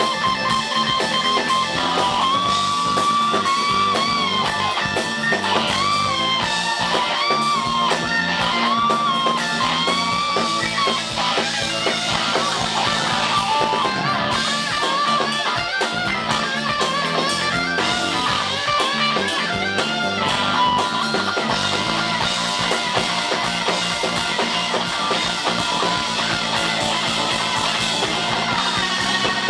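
Live electric guitar lead on a sunburst Stratocaster-style guitar, played over a rock band with drums. Long notes are bent and wavered for the first ten seconds or so, then give way to busier, faster playing.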